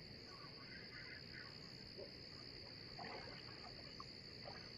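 Faint, steady high-pitched insect chorus, with a few faint brief sounds scattered over it.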